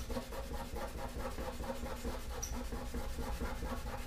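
Coarse steel wool scrubbed back and forth over the painted metal of an old toolbox: a steady, rhythmic scratchy rubbing as the pad strips off paint and grime.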